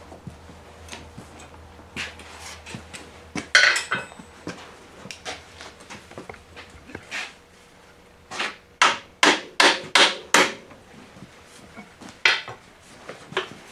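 Hammer striking metal while working a mounting pin out of a hydraulic lift cylinder: scattered lighter taps, then a run of about six hard blows in quick succession past the middle.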